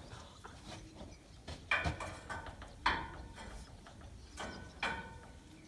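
Metal scaffold parts knocking together as a piece is fitted: about three sharp clanks, each with a short metallic ring.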